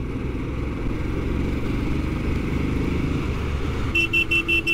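Motorcycle under way with a rider and two passengers: steady engine and road noise. Near the end, a quick run of about six short high beeps.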